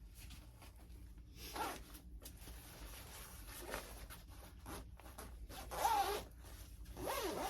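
Clothing zipper on a garment on its hanger being zipped up in several short pulls.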